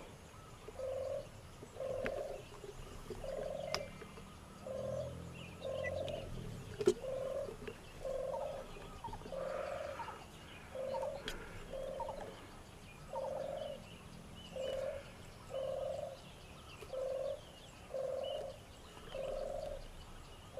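A bird repeating one short, low, even-pitched call about once a second, with faint higher chirping behind it. A single sharp click about seven seconds in.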